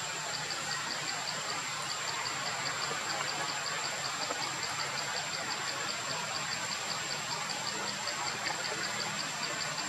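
Steady outdoor background: a constant hiss with a high, unchanging whine and a fast, even pulsing of about five beats a second running through it. No distinct sound from the monkeys stands out.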